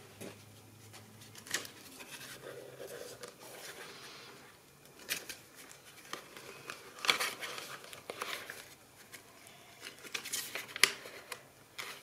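Stiff cardstock and vellum pages of a handmade journal being turned and folded open by hand: soft paper rustling with a few sharp flicks and taps, clustered near the end.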